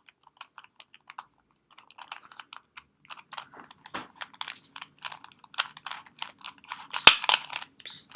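A cheap plastic Rubik's cube being twisted by hand: irregular clicks and crunching of stiff layers that are hard to turn, sparse at first and busier after about three seconds, with one sharp, louder crack about seven seconds in.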